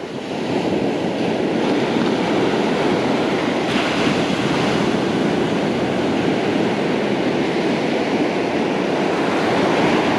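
Ocean surf washing onto the beach, a steady rushing noise that swells about half a second in, with wind on the microphone.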